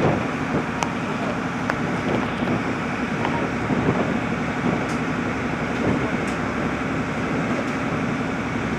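Ferry boat's engine running steadily, a constant low hum under an even rushing noise.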